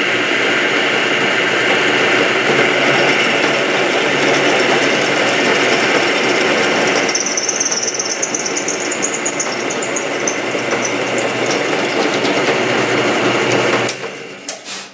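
Drill press running, its bit slowly boring out a stripped head-stud hole in a two-stroke ATV cylinder. A high whine from the cutting joins about halfway through, and the press shuts off near the end.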